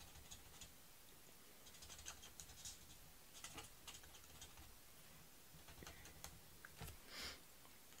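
Faint scratching of an alcohol marker's nib colouring on cardstock, in short clusters of strokes with pauses between them.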